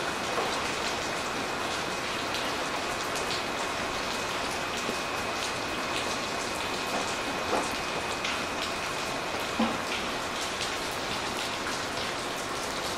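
Steady rain falling, with scattered drips ticking and a few louder drips later on. A faint steady high tone runs underneath.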